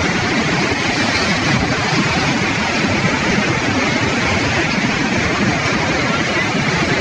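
Landslide: rocks and debris falling down a steep cliff face, a loud continuous rushing rumble with no separate crashes standing out.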